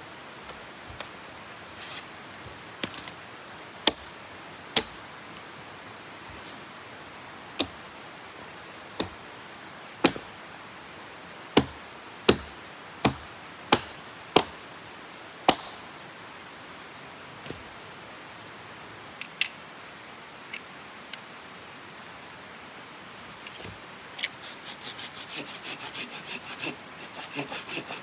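Wood cracking and snapping in a string of sharp, irregular cracks over the first twenty seconds, loudest around the middle. Then, a few seconds before the end, a hand saw starts cutting wood with quick, even back-and-forth strokes.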